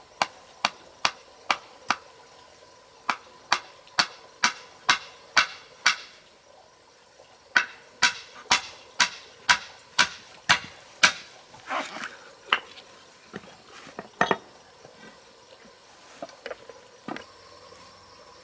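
Hammer driving nails into round wooden poles: a run of even strikes about two a second, a short pause, a second run, then a few irregular, lighter knocks near the end.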